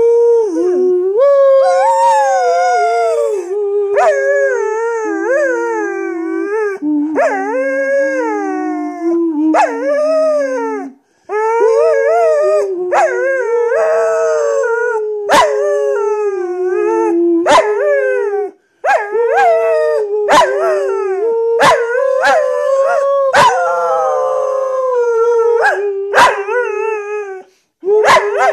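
Australian shepherd howling in long, wavering calls that rise and fall, singing along with a man humming held notes beneath it. In the second half the howls come in shorter pieces broken by sharp clicks.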